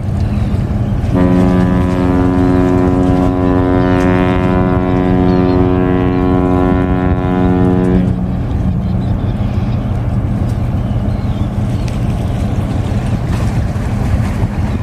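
A ship's horn gives one long, steady blast of about seven seconds, starting about a second in, over a steady low rumble with wind on the microphone.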